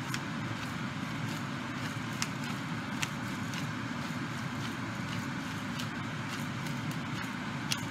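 Steady hiss of noodles and vegetables cooking in a skillet on the stove, with three sharp clicks from a wooden spatula stirring against the pan.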